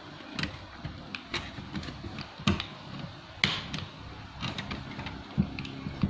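Irregular small clicks and taps of a screwdriver and hands working on an Asus X441B laptop's plastic case, undoing a hidden screw near the battery.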